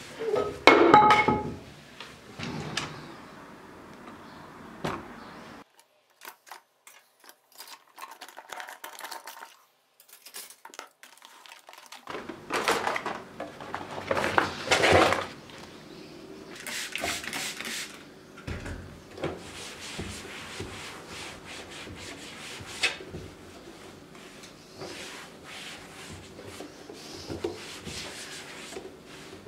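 Household handling sounds: a cloth rubbing over a tiled floor, then a laminate kitchen drawer being handled and rummaged, with scattered knocks, clicks and rustling. Partway through, the sound nearly drops out for several seconds.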